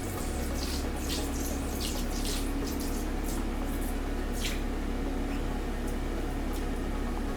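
Water running steadily into a large tub-like basin, with a low steady hum underneath and a few faint splashy ticks.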